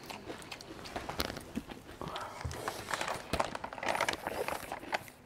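Close-up eating sounds: a soup-soaked piece of fried rice crust (guoba) being bitten, chewed and blown on, with scattered small wet clicks and short puffs of breath.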